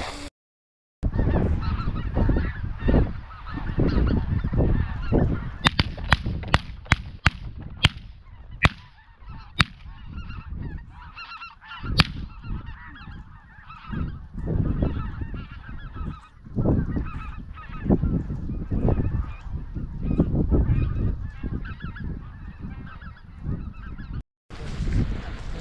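A large flock of geese honking and calling continuously over low wind rumble, with a quick run of sharp clicks in the middle.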